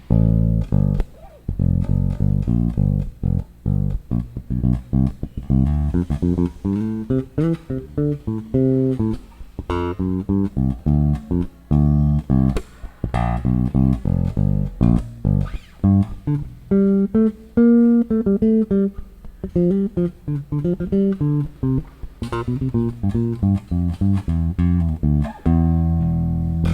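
Squier electric bass with Malagoli pickups played fingerstyle, with both pickups and the tone control fully open: a run of separate plucked notes, climbing higher about two-thirds of the way through and ending on a held low note that rings on.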